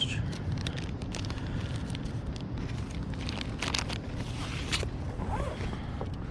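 Low steady rumble of wind on the microphone, with scattered small clicks and crackles of fishing tackle being handled while a new lure is rigged.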